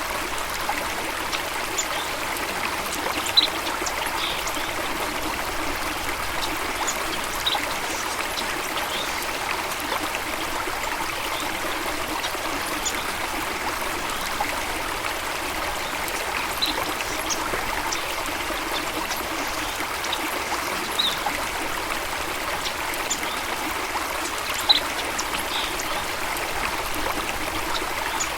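Running water of a stream, a steady rushing trickle, with short high bird chirps now and then.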